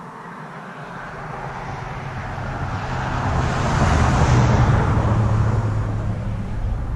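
A road vehicle driving past: its engine and tyre noise grow louder, peak about four seconds in, then fade away.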